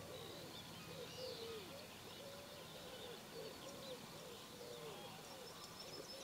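Faint wildlife calls: a steady run of short, low, arched calls, two or three a second, with small birds chirping and twittering higher above.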